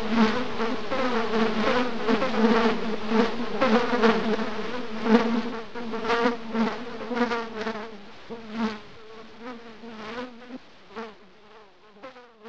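Insect-like buzzing drone, loud at first and fading away over the second half.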